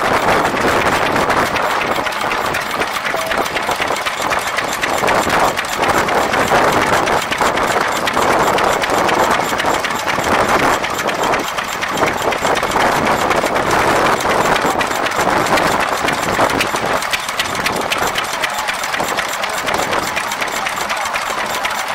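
Vintage stationary engines running, their spoked flywheels turning. Near the end, a green Fairbanks-Morse Z engine runs close by.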